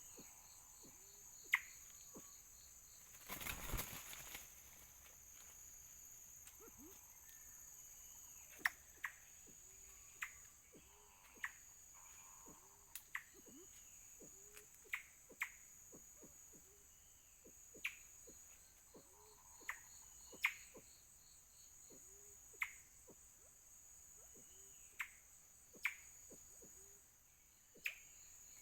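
Forest ambience: a steady high insect drone, with short sharp calls every second or two and faint low hooked notes. A brief rustle about three and a half seconds in.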